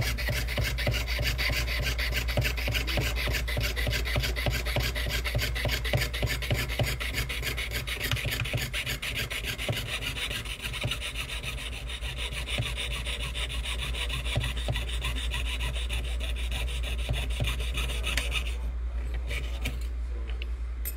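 Jeweler's saw blade cutting through copper sheet in quick, steady back-and-forth strokes, a continuous fine rasp that stops near the end.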